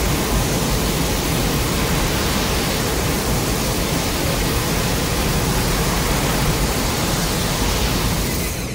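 Steady rushing noise spread across low and high pitches alike, holding level and then fading out near the end.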